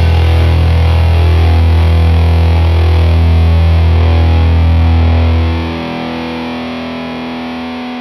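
Rock music with distorted electric guitar: a loud held chord that fades down a little over five seconds in, leaving quieter ringing notes.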